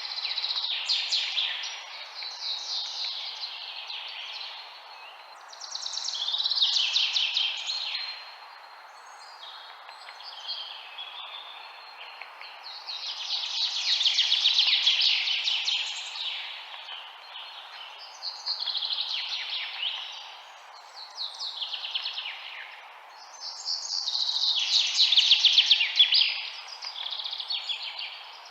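Birds chirping in rapid, dense high-pitched bursts every few seconds, over a steady background hiss.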